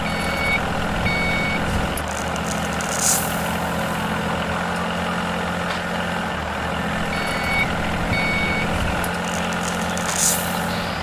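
Heavy construction vehicle's engine running steadily, with two short reversing beeps near the start and two more about seven seconds in. A short air-brake hiss comes about three seconds in and again near the end.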